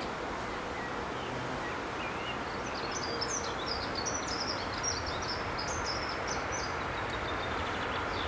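A songbird sings a quick, high twittering phrase of chirps, starting about two and a half seconds in and lasting about four seconds, with a few single chirps before it. Under it runs a steady rushing background noise.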